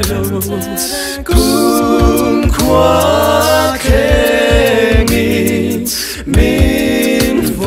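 Young men's a cappella group singing in close harmony, over a low bass line and a steady percussive beat.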